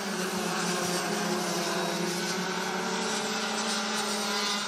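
Rotax Max DD2 two-stroke racing kart engines running on track, giving a steady engine note that drifts slightly in pitch.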